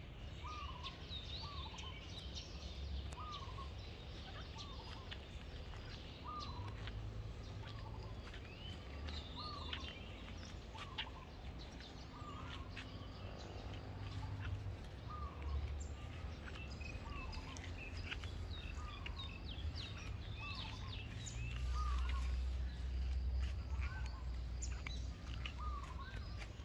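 Birds calling outdoors: one repeats a short call over and over, with other chirps scattered above it, over a steady low rumble.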